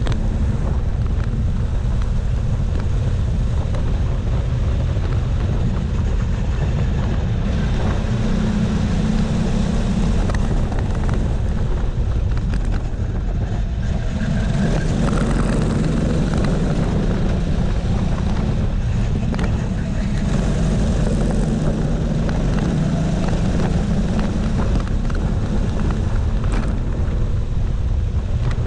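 Kart engine running hard on the track, its note rising and falling with the throttle through the corners.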